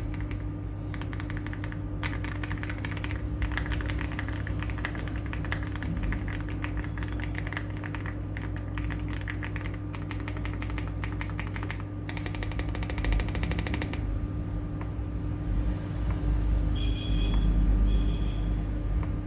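AULA F75 75% mechanical keyboard with PBT keycaps being typed on: a dense run of fast keystroke clicks that stops about fourteen seconds in. A low rumble and a few short high beeps follow near the end.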